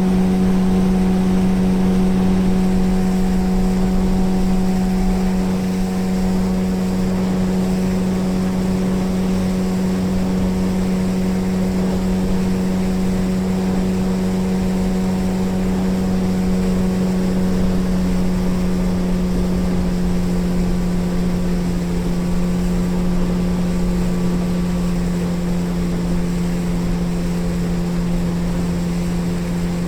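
Motorboat engine running at a steady speed: a strong, even hum with overtones over a wash of noise, easing slightly lower in pitch in the second half.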